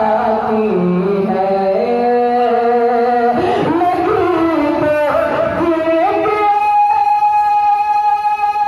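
A man singing a naat, an Urdu devotional song, his melody moving in steps from note to note and then settling on one long held note about two-thirds of the way in.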